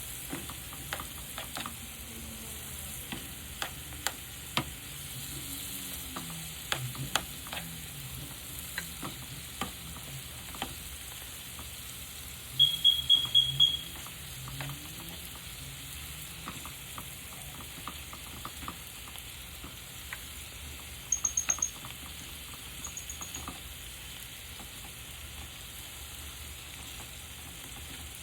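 Chicken frying in tomato sauce in a pan: a steady sizzle with scattered clicks of a utensil against the pan. About halfway through comes a quick run of about six loud electronic beeps, and shorter, higher beeps follow later.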